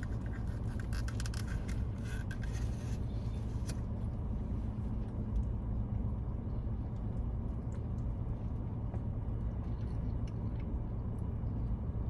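Steady low rumble of a car running, heard from inside the cabin. For the first few seconds there is crinkly rustling of food wrapping being handled, then only a few faint clicks.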